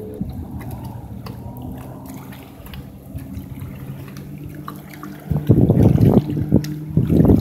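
Mercury 200 hp EFI outboard on a Champion bass boat running at speed across the lake, a steady distant engine drone. About five seconds in and again near the end, loud bursts of rough, low noise close to the microphone drown it out.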